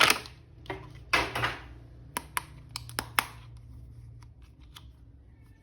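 Plastic rustling and sharp little clicks of an action figure toy being handled and unpacked. There are a few crisp snaps in the first three seconds, then only faint ticks.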